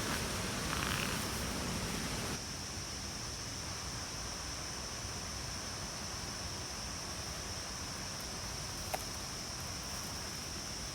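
Steady high-pitched insect chorus over a low background hiss that drops a little about two seconds in, with a single faint click near the end.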